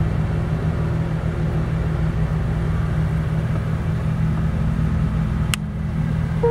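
Background music at a low, pulsing drone with no melody, and a single sharp click about five and a half seconds in.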